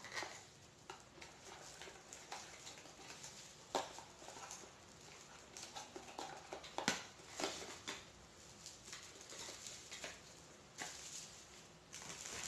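Handling noise from unwrapping a mini LED video light: crinkling plastic packaging with irregular small clicks and knocks, two of them sharper, about four and seven seconds in.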